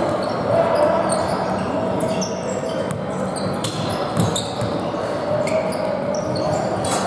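Basketball game play in a large gym: a ball bouncing and many short, high sneaker squeaks, over a steady murmur of voices echoing in the hall.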